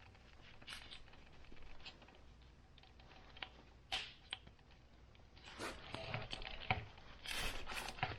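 Scattered small clicks and rustles of wiring and plastic connectors being handled, growing busier over the last few seconds.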